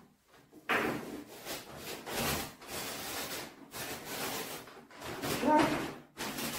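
Paper kite's sail rustling and crinkling as it is handled and worked at by hand, starting abruptly about a second in and going on in irregular scratchy bursts.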